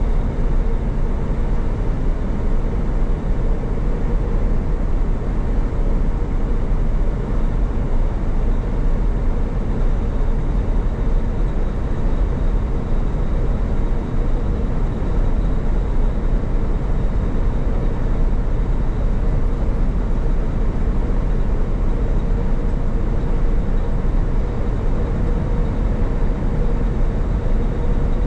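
Semi truck cruising at highway speed, heard from inside the cab: a steady drone of engine and tyre and road noise with a faint steady hum.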